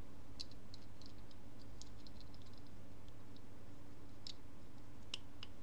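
Plastic speedcube pieces clicking in the hands as caps are pressed and snapped onto them: scattered light clicks, a quick run of small clicks about two seconds in, and a sharper snap just after five seconds.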